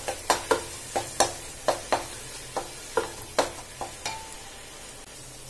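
Wooden spatula stirring and scraping a frying masala in a nonstick pan, knocking against the pan about three or four times a second over a low sizzle; the strokes stop about four seconds in, leaving the sizzle. The masala is fried through, the stage just before water is added.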